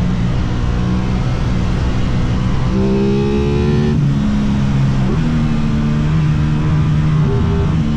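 Aprilia RS660 parallel-twin motorcycle engine running under way, with steady wind rush. The engine note jumps up about three seconds in and steps up and down in pitch a few more times.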